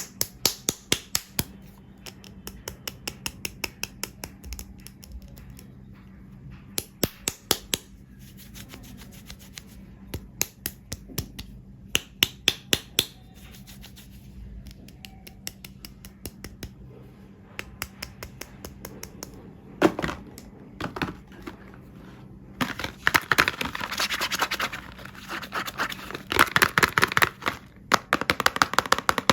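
Soap packaging being handled and opened by hand: runs of sharp clicks and taps, turning to denser crinkling and scratching over the last several seconds.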